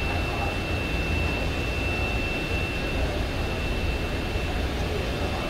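Steady room noise: a low rumble with a thin, constant high-pitched whine over it, unchanging throughout.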